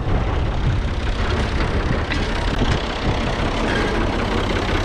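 Tractor diesel engine idling steadily, with a few light knocks about two seconds in.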